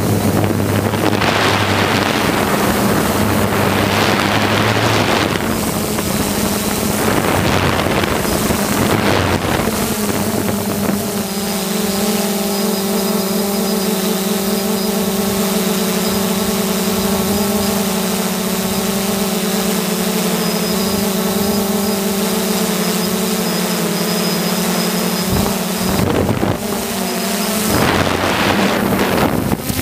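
Small quadcopter drone's electric motors and propellers humming with a steady whine. Gusts of wind buffet the microphone through the first third and again near the end.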